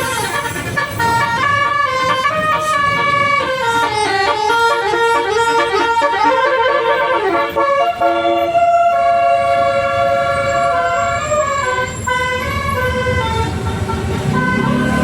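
Telolet basuri bus horn playing a tune: a multi-trumpet musical horn sounding a run of stepping notes, with a longer held note about halfway through, over a low rumble.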